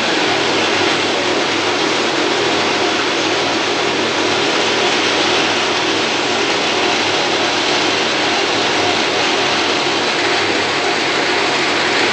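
Metal lathe running steadily, spinning a steel shaft between the chuck and the tailstock centre: an even mechanical hum and noise.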